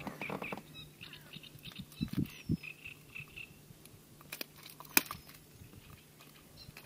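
Quiet handling sounds: scattered faint clicks and rustles, with a couple of soft knocks and one sharper click about five seconds in, as a small pike is held by hand in an inflatable boat.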